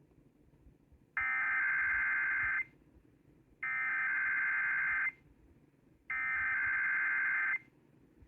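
Emergency Alert System digital header (SAME) tones heard off a radio broadcast: three identical harsh electronic data bursts, each about a second and a half long and about two and a half seconds apart. They mark the start of an EAS alert message.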